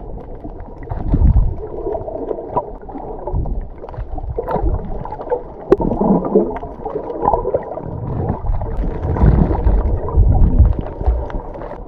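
Muffled water sound picked up by a camera held under water: irregular swishing, gurgling and low rumbling, with a few faint clicks.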